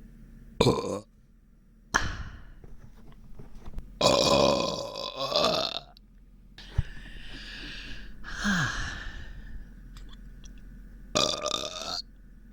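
A person burping about five times, with one long burp of about two seconds in the middle. The burps come from an upset, bloated stomach.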